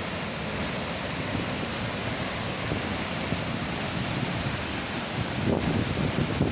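Waterfall rushing steadily in heavy flow, with low gusts of wind buffeting the microphone about five seconds in.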